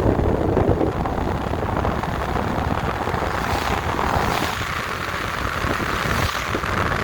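Car driving on a snowy road: steady engine and road noise.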